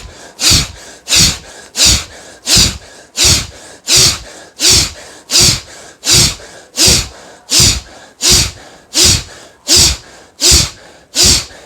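A person forcefully exhaling through the nose in a steady rhythm of short, sharp blasts, about three every two seconds. It is a yogic breathing practice for clearing mucus from both nostrils.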